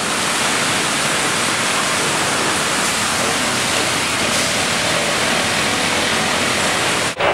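Sawmill line running, a log going through the first set of saws: a loud, steady rushing noise that starts and stops abruptly.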